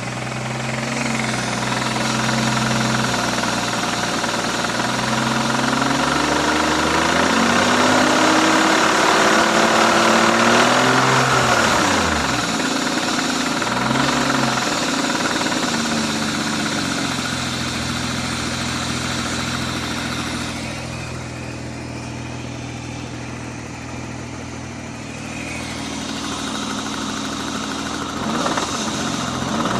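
BMW M52 straight-six engine running at idle and being revved, with a knock whose source the owner cannot find. The revs climb slowly to a peak about eleven seconds in and drop back, with shorter blips of the throttle around fourteen seconds in and near the end.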